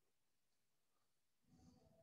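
Near silence: faint room tone, with one brief faint sound about one and a half seconds in.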